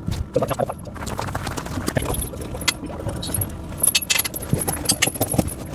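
Steel tractor tire chains clinking and jingling in irregular bursts as the links are handled and shifted.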